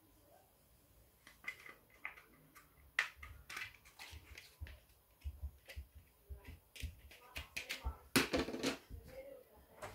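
Clear plastic spool case and plastic line spool being handled: a string of small plastic clicks and taps as the case is opened, then a louder scraping rattle about eight seconds in as the spool comes out of the case.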